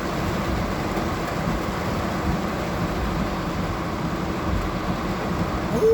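Steady noise of heavy rain and a car driving, heard from inside the cabin.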